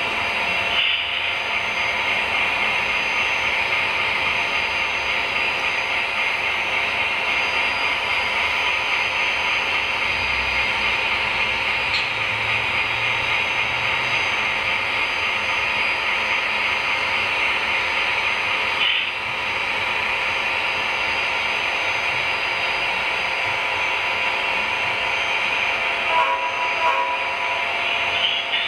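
Model freight train's cars rolling past on the layout track, with a steady high whir of wheels on rail and the running locomotive.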